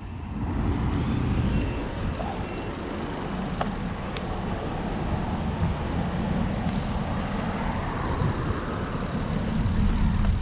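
Steady wind rumble on the microphone with road noise from a moving road bike, with no clear tones or knocks.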